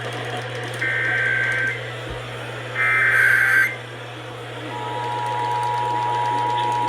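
Emergency Alert System SAME header: two short buzzy data bursts about a second long, the second louder, completing the three-burst header of a Texas Amber Alert. About five seconds in, the steady two-tone EAS attention signal (853 and 960 Hz) begins over a low broadcast hum.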